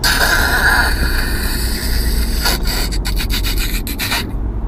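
Half-torn plastic undershroud of a Nissan 350Z dragging under the moving car, a rough scraping that turns into rapid rattling and slapping about two and a half seconds in, then cuts off shortly before the end.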